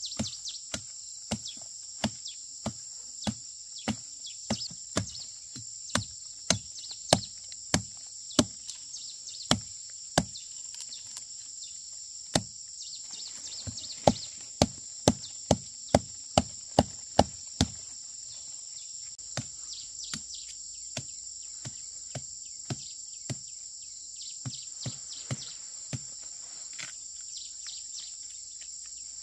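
Repeated chopping strikes, about one every half to three-quarters of a second, in runs with a short pause, the strongest run around the middle and lighter blows near the end. A steady high buzz of insects runs under them.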